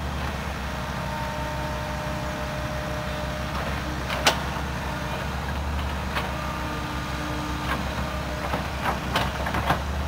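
Tracked excavator's diesel engine running steadily at a distance, a low drone, with a sharp knock about four seconds in and a few more near the end.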